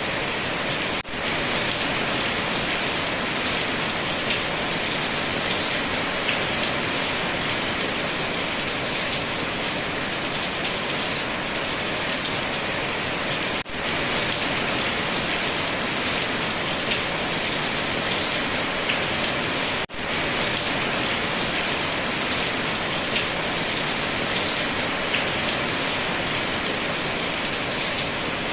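Steady rain falling in a dense, even patter, which cuts out for a split second three times.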